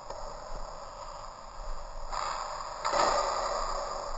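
Hiss of ice-hockey skate blades scraping across the ice, picked up by a GoPro on a skater; it grows louder about two seconds in and again about three seconds in.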